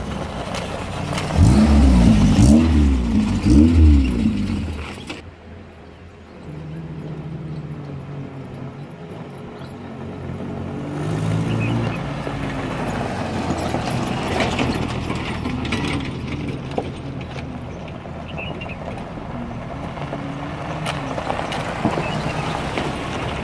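Off-road 4x4s driving past one after another on a gravel track: the first, a Suzuki Gypsy, revs hard with several rising and falling sweeps of engine pitch over its first four seconds, then drops away. The engines of the following vehicles then run more steadily and quietly, swelling again as the next one passes.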